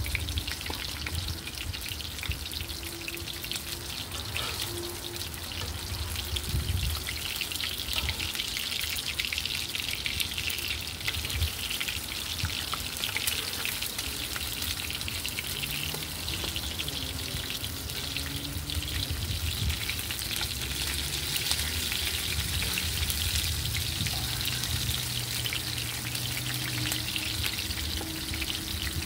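Oil sizzling and crackling steadily in a cast-iron skillet as fish fries in shallow oil.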